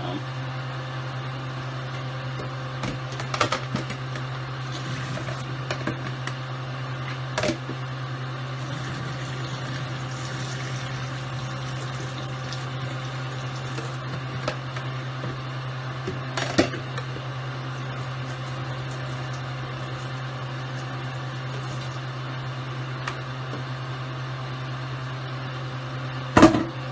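Steady low electrical hum from a kitchen appliance, with a few knocks and clatters of pots and dishes now and then; the loudest knock comes near the end.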